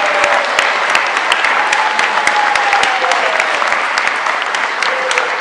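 Audience applauding steadily, with a few drawn-out calls of voices cheering over the clapping.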